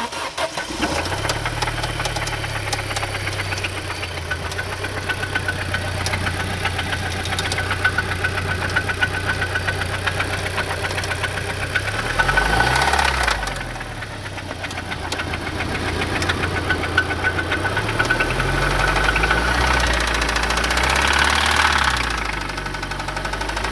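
Audi B7 A4 engine starting and running with a rapid knocking from the engine, briefly revved up and let back down twice, about halfway through and again near the end. The knock is not from the timing chain or its tensioner.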